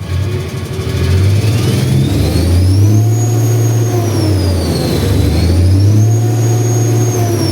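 Mitsubishi Fuso 6M70-T7 inline-six turbo diesel revved twice from idle, each rev held about a second before dropping back, with a high whine rising and falling with the revs. The engine is running again after a crank-no-start fault was fixed.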